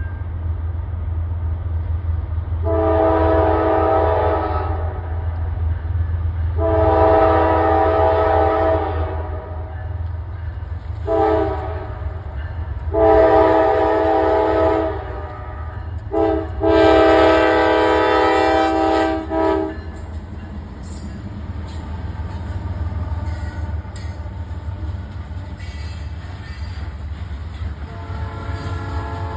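Norfolk Southern locomotive horn sounding the grade-crossing signal, long, long, short, long, then a short blast and a long one held, over a steady low rumble from the locomotive. The train then rolls past with its wheels clattering on the rails, and a horn starts up again, fainter, near the end.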